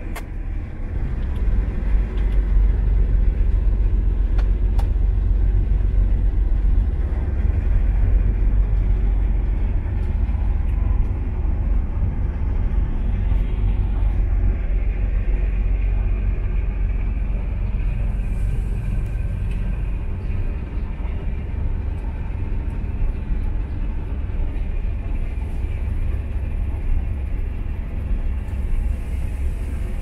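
CLAAS LEXION combine harvester running under load while harvesting grain, heard from inside the cab: a steady, deep mechanical rumble of engine and threshing machinery. The deepest part of the rumble eases slightly about two-thirds of the way through.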